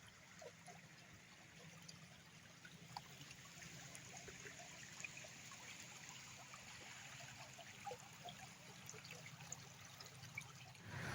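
Faint trickling of a small river, with scattered small splashes and drips over a low hum.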